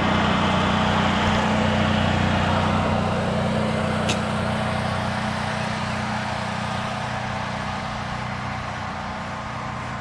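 An engine running steadily and slowly getting quieter, with a short click about four seconds in.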